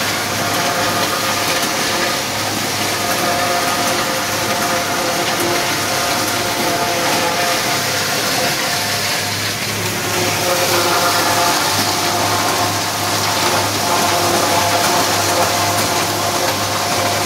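New Holland 8160 tractor's diesel engine running under load together with the New Holland 790 two-row corn chopper working, heard from inside the tractor cab as a steady, loud mechanical drone. It grows a little louder from about ten seconds in.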